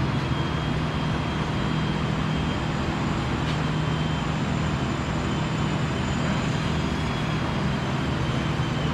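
Steady hum and hiss of shop machinery, with a faint high whine held throughout.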